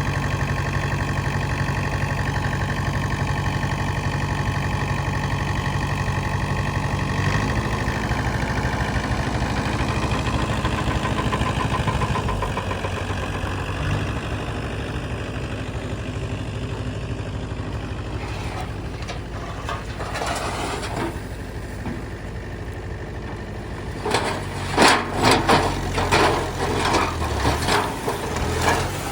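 Heavy diesel engine running steadily, its pitch shifting about a quarter of the way in and easing off a little later. A quick run of sharp clanks and knocks near the end.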